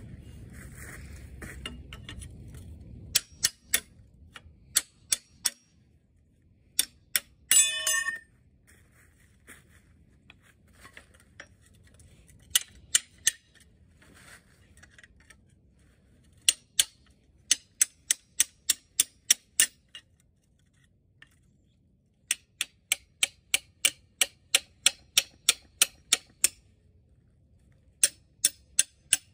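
Hammer blows on a pry bar driven against the stuck timing gear of a Wisconsin V4 engine: sharp metal-on-metal strikes, single at first and then in quick runs of about three a second, with one longer ringing clang about eight seconds in.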